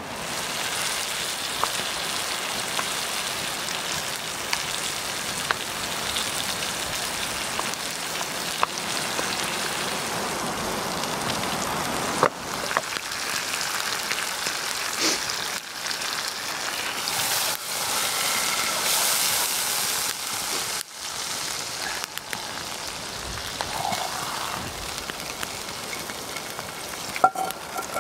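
Food sizzling in a pan over a campfire: a steady hiss with scattered sharp crackles from the fire.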